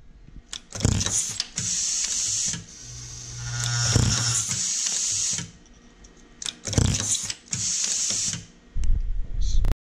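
C. Davis GWT 302C automated crimping machine cycling: sharp mechanical clacks of the crimp head closing on mil-spec contacts, with about one-second bursts of compressed-air hiss as each loose contact is blown through the feed tube to the crimper, and a brief low hum of the vibratory bowl feeder.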